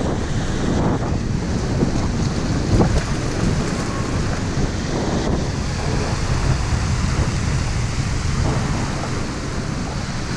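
Choppy surf breaking and washing up the shore, with wind buffeting the microphone in a steady low rumble.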